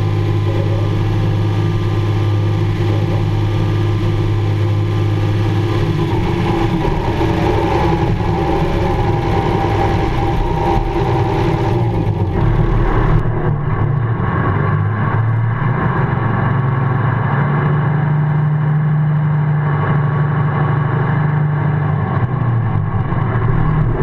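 Ford TW-25 tractor's six-cylinder turbo diesel engine running steadily, heard close beside the engine block. Its note shifts in pitch about halfway through.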